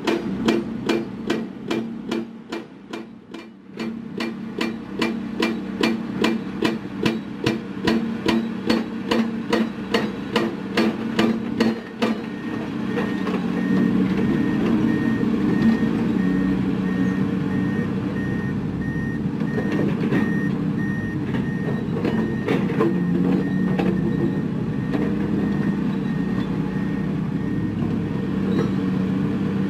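Heavy rhythmic hammering, about two to three blows a second, stops about twelve seconds in. Then a dump truck's reversing alarm beeps steadily over its running diesel engine as the truck backs up.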